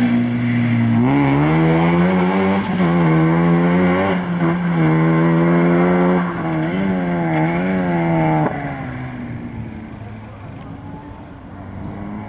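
Hatchback race car engine accelerating hard away, its revs climbing and dropping repeatedly with gear changes and lifts of the throttle, then falling off and fading into the distance about eight seconds in.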